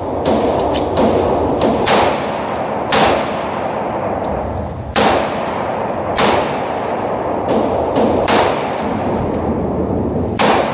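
Gunshots on a range, fired singly at irregular intervals: about six loud shots with fainter ones in between, each ringing out with a long echo.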